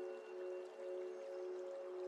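Ambient new-age background music: a few low tones held steadily over a soft hiss, swelling gently in level.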